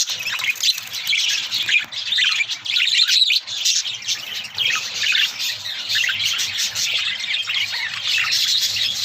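A flock of small pet birds chirping and squawking together, many short calls overlapping without a break.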